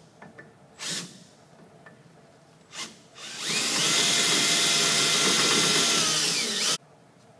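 Cordless drill drilling out the rivet that holds the brake-line clip on a RZR's front suspension: two short blips, then a steady run of about three seconds that cuts off suddenly.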